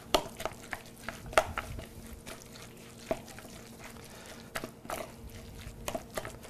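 Coleslaw being mixed by hand in a cut-glass bowl: soft, wet rustling of shredded cabbage and carrot in a yogurt dressing, broken by irregular light knocks and clicks against the glass.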